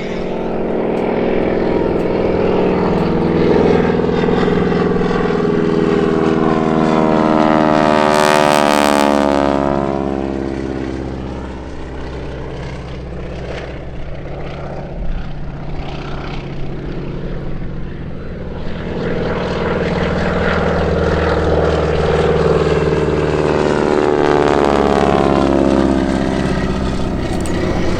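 Propeller aircraft engine flying past twice, the steady engine note swelling to a peak and fading away each time.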